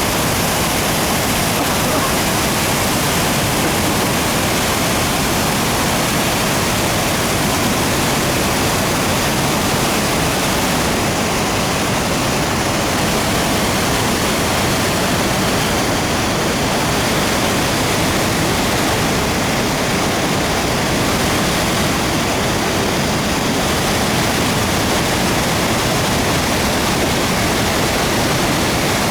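The Rhine Falls, a large waterfall, roaring loud and steady: a dense, unbroken rush of falling water.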